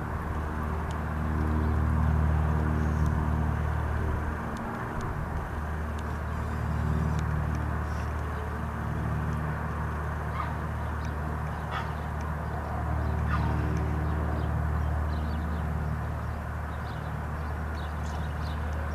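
Single-engine light aircraft's piston engine and propeller droning steadily as it flies over, swelling and fading slowly in loudness.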